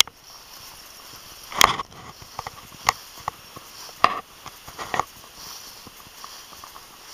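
Footsteps crunching and rustling through dry wheat stubble: four louder crunches about a second apart, the first the loudest, with lighter rustles between them.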